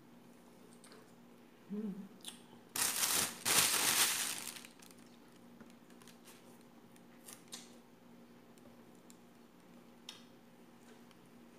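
A plastic bag rustling loudly for about two seconds, starting about three seconds in. Faint scattered clicks of crab and shrimp shells being picked apart by hand follow.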